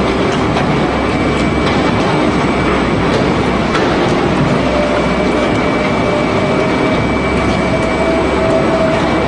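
Large industrial meat mincer running, a loud steady mechanical noise with a low hum and scattered faint ticks.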